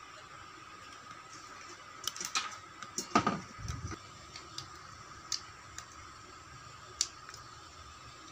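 Scattered clicks and light knocks of a thin steel knife blade and its sheath being handled and fitted together by hand, with a cluster of taps about two seconds in and the loudest knock a little after three seconds, then single ticks. A faint steady high hum runs underneath.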